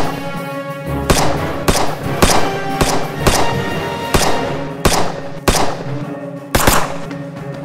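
Handgun shots, about eight sharp reports spaced half a second to a second apart, over background music.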